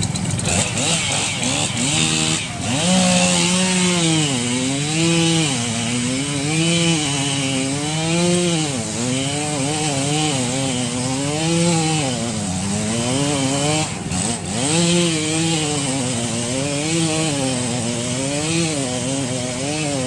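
Chainsaw cutting through lake ice. The engine's pitch rises and falls about every second and a half as the bar is worked down through the ice, with a brief dip about two-thirds of the way through.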